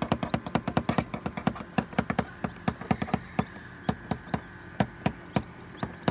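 Fingertip tapping on the clear plastic lid of an egg incubator, rapid at first and then slowing to a few taps a second, done to rouse the newly hatched chicks as a mother hen would.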